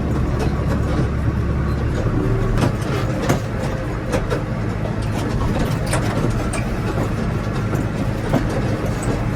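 Tractor engine running steadily under load, with a deep hum and frequent rattles and knocks from the machinery; the lowest part of the hum shifts about two seconds in.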